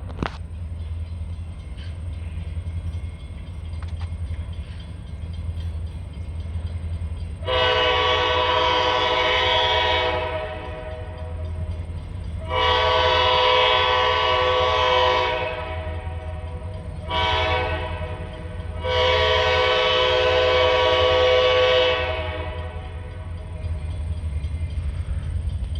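Diesel freight locomotive's multi-chime air horn sounding the grade-crossing signal: two long blasts, a short one, then a long one, each echoing away as it stops. A steady low rumble runs underneath.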